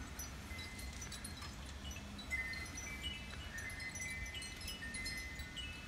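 Wind chimes ringing in the breeze, scattered clear notes at several different pitches with no steady beat, over a low rumble of wind on the microphone.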